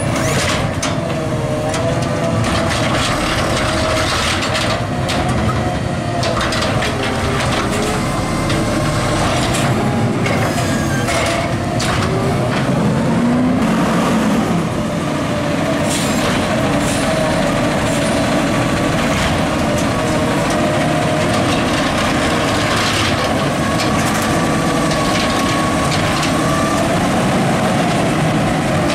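Autocar ACX McNeilus Zero Radius side-loader garbage truck running, its hydraulics giving a wavering whine over the engine, with scattered clanks and bangs as the arm grabs, lifts and dumps carts.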